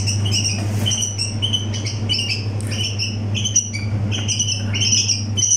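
Hand-tame bulbuls chirping: a busy run of short, high calls several times a second, over a steady low hum.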